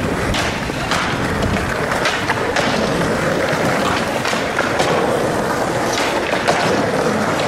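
Skateboards rolling on pavement and grinding along a ledge, with repeated sharp clacks of boards popping and landing.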